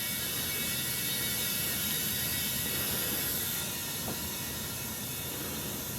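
Compressed air hissing steadily into a riding mower tire to seat the tire's bead on the rim. The sound eases a little about three and a half seconds in.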